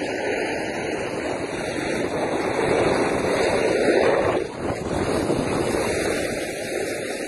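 Steady rushing noise of riding down a groomed ski slope, wind on the microphone mixed with the sliding of snow. It grows louder about three to four seconds in.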